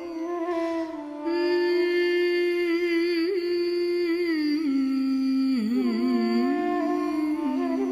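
A woman's voice humming the slow opening of a Malayalam film song, in long held notes with vibrato and ornamented bends. The voice gets louder about a second in.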